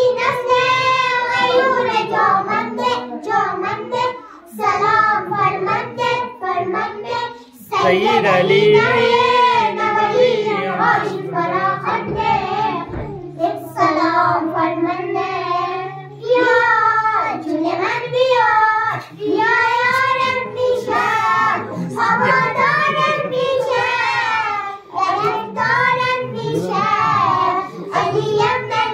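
Three young girls singing together into microphones, in long sung phrases broken by short pauses for breath.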